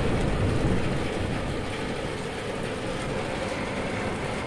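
Thunderstorm heard as a steady, low rumbling noise with a hiss over it, a little louder in the first second, with no single sharp thunderclap.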